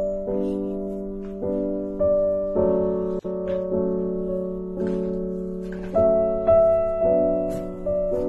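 Background piano music: soft chords struck roughly once a second, each ringing and fading until the next.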